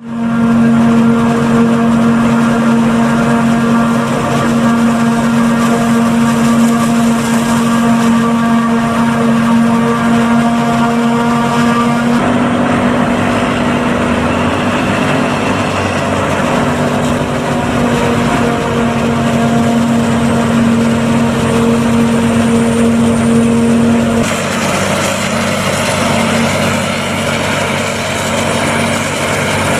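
New Holland FX450 self-propelled forage harvester running under load while chopping corn silage: a loud, steady machine drone with a strong held hum and rushing noise. The mix shifts twice, and the strongest hum drops away near the end.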